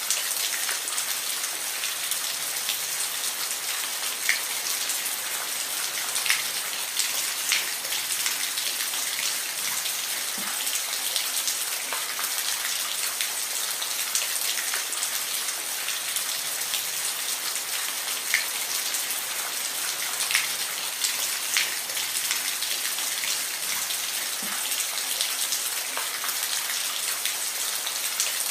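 Steady rain falling, an even hiss with scattered louder drops ticking every second or two.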